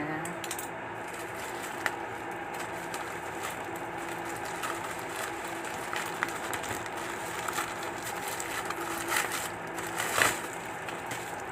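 Plastic courier pouch being handled and opened: crinkling and rustling, with scattered clicks and a louder crackle about ten seconds in, over a steady low hum.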